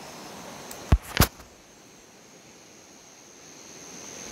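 Two sharp knocks about a second in, a quarter of a second apart, over a steady high-pitched insect trill.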